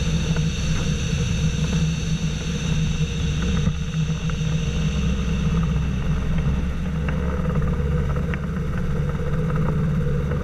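Engine and pusher propeller of a flying inflatable boat with a delta wing, running with a steady drone.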